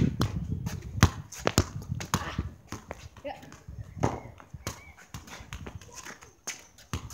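Soccer balls being kicked and bouncing on asphalt: a series of sharp thuds, the loudest at the start and about a second in, with fainter ones later.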